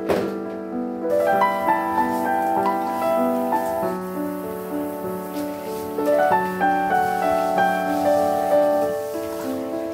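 Background piano music: a gentle melody of held notes over a steady low note.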